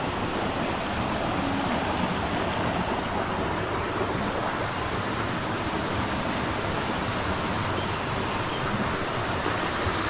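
Shallow, fast-flowing stream rushing over rocks in a narrow cave gorge: a steady, even rush of water.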